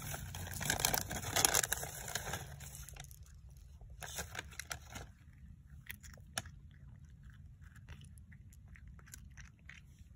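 Domestic cat crunching and chewing Temptations cat treats, densest and loudest in the first three seconds, then scattered single crunches.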